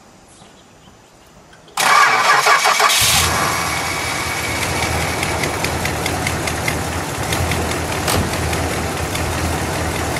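1968 Imperial's 440 cubic-inch V8 started: after a quiet couple of seconds the starter cranks for about a second, the engine catches, and it settles into a steady idle. The idle is pretty smooth, with a little ticking.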